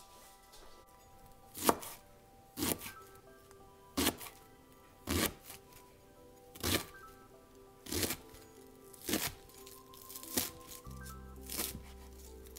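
Kitchen knife slicing through a bundled stack of leafy greens onto a cutting board: about nine slow, separate cuts roughly a second apart, the first the loudest, over background music.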